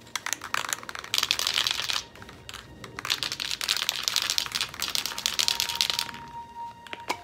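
Spray paint can being shaken hard, the mixing ball rattling rapidly inside, in two bouts of about two and three seconds with a short pause between.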